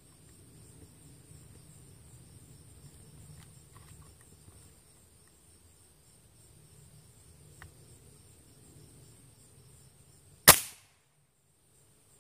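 A spring-piston air rifle fires once, a single sharp crack about ten and a half seconds in.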